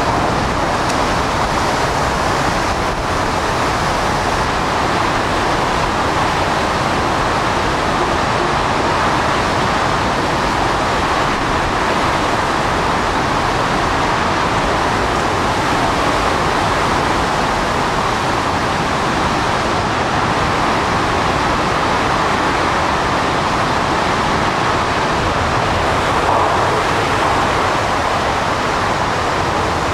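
Hurricane-force wind and driving rain making a steady, loud roar of noise that does not let up.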